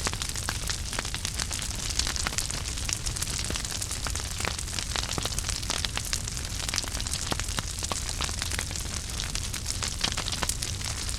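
Wood fire burning in a fireplace: dense, irregular crackling and sharp pops over a steady low rumble of the flames.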